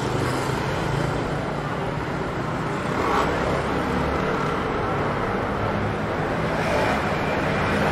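Busy city street: steady road traffic noise, with a louder low rumble of a passing vehicle about three seconds in.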